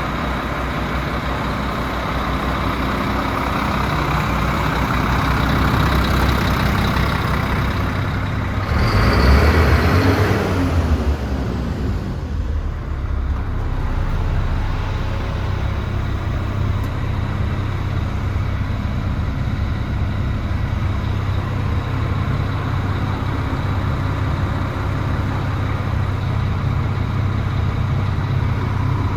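DAF CF75 lorry's 310 bhp Euro 5 diesel engine running steadily at idle, with a louder burst of noise about nine seconds in that fades within a couple of seconds.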